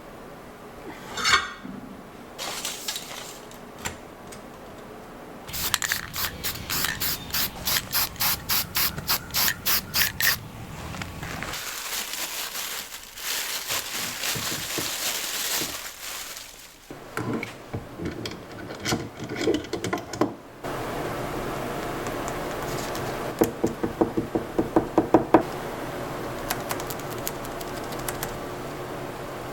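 Hand tools working on metal tractor parts: a run of even strokes, about two or three a second, then scraping and clinks, and near the end another quick run of strokes.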